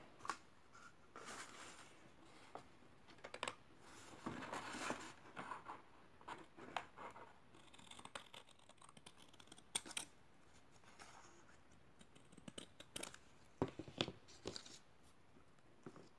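Scissors cutting thin cardboard from a flattened toilet-paper roll: a faint, irregular run of short snips and paper rustles.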